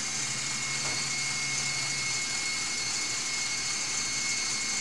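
Steady whirring whine of an electric mixer running, whipping eggs and yolks into a foam. A lower hum underneath drops away about two seconds in.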